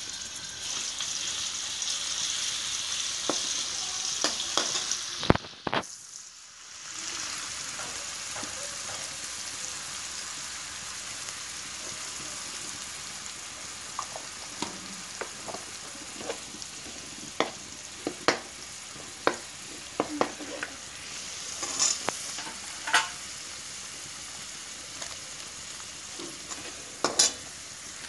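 Masala sizzling as it fries in hot oil in a metal kadhai, loudest for the first five seconds or so and then a steadier, quieter sizzle. Later the steel ladle stirring it clicks and scrapes against the pan now and then.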